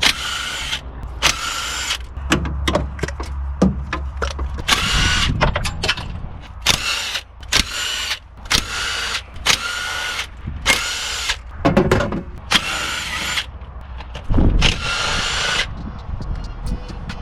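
Cordless power driver spinning out the bolts of a Mazda Miata valve cover in a dozen or so short runs of about a second each.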